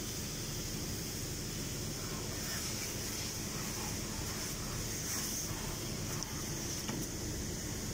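Water from a garden hose spraying onto a car's body and splashing on wet concrete: a steady hiss, with a faint steady hum underneath.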